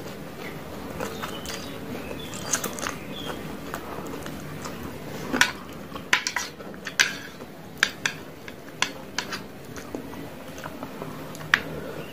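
Instant fried noodles being slurped and chewed. From about halfway, a run of sharp clicks and scrapes as chopsticks strike the metal tray while picking up more noodles.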